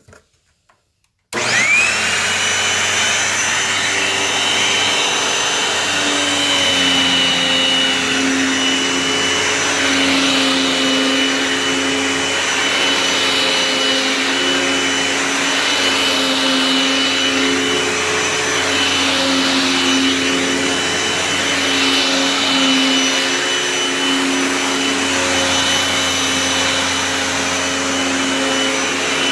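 Dirt Devil Swivel Glide Vision upright vacuum switched on about a second in: the motor whines up to speed within a moment, then runs steadily with a constant high whine.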